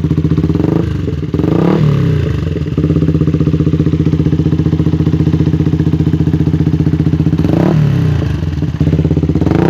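Yamaha Vixion single-cylinder four-stroke engine through an aftermarket racing muffler, idling with a deep, bassy exhaust note and blipped on the throttle in short revs, twice early on and again near the end.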